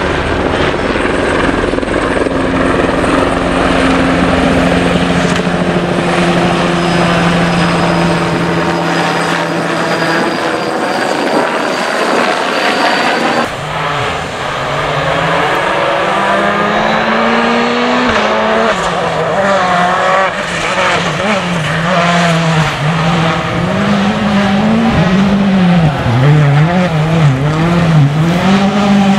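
Rally car engine on a gravel stage, revving up and falling back again and again through gear changes and corners. A steady helicopter drone runs through the first several seconds.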